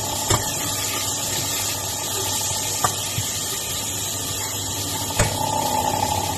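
Chicken pieces sizzling in hot oil in a stainless steel pot while a metal spoon stirs them, over a steady hum. The spoon clinks sharply against the pot three times: near the start, in the middle and near the end.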